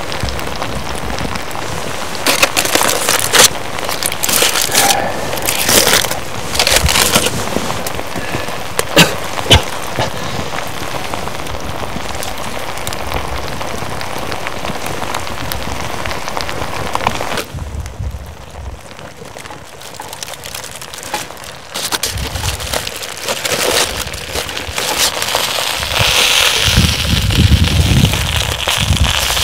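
Campfire crackling and popping under a cast-iron Dutch oven, over a steady sizzling hiss from the steaming pot. Near the end aluminium foil crinkles as it is pulled open.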